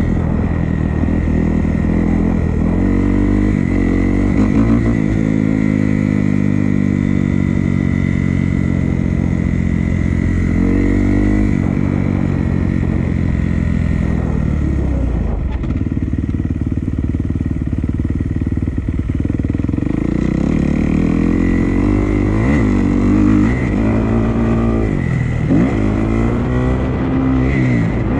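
Dirt bike engine being ridden, its pitch climbing and dropping again and again with throttle and gear changes. It eases off for a few seconds near the middle, then revs up again.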